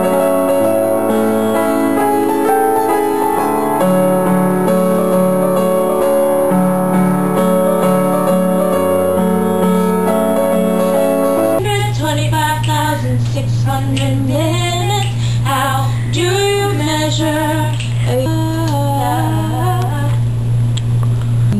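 Keyboard playing held piano chords; about halfway through, it cuts to a girl singing with vibrato over a steady low hum.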